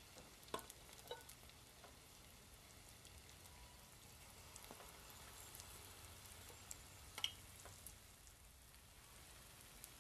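Fritters of potato-and-vegetable yeast batter frying in hot vegetable oil: a faint, steady sizzle with scattered small pops. A few sharper clicks come about half a second in, near one second, and loudest about seven seconds in.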